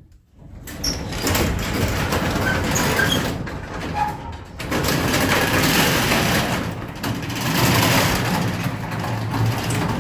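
Garage door travelling along its track, a continuous rattling run over a steady low hum that starts about half a second in, with brief dips near the middle.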